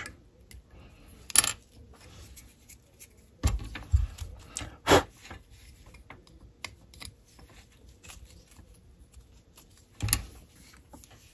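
Scattered light clicks and knocks of hobby tools and small plastic model-kit parts handled on a workbench: a click about a second and a half in, a cluster of knocks around four to five seconds in, and another click near the end.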